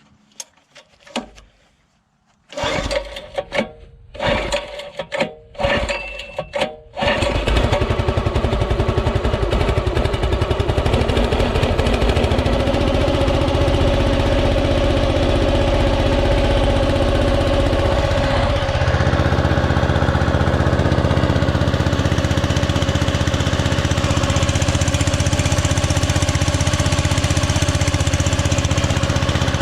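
Irregular clatter and knocks for several seconds, then a mini excavator's diesel engine starts about seven seconds in and runs steadily and loudly. Its note shifts lower down about eighteen seconds in, as the engine speed changes.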